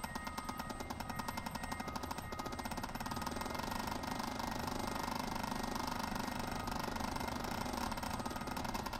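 Electroacoustic music from a piece for kalimba and live electronics: a dense, rapid stutter of electronic pulses, many per second, that grows a little louder about three seconds in.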